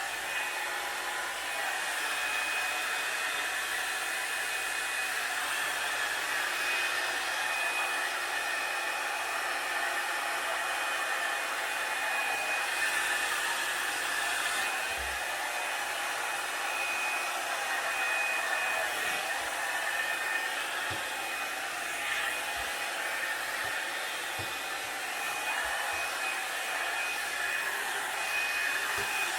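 Revlon One-Step blow dryer brush running steadily, blowing air through the hair, a high thin whine over the rush of air.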